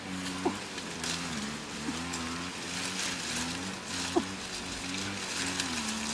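A steady low motor-like drone, wavering slightly in pitch, with a few short rising chirps and light rustling of leaves and twigs as rambutan clusters are pulled from the branches.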